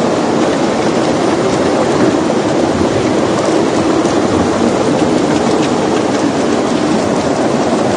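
Floodwater rushing down a street in a loud, steady torrent, churning with debris.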